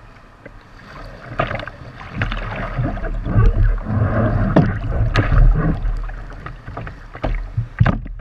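Paddle strokes splashing and water slapping against the hull of an Epic V7 surf ski, heard close on the bow, with a deep rumbling wash. Near the end come a few sharp splashes as the paddler gets off into the shallows.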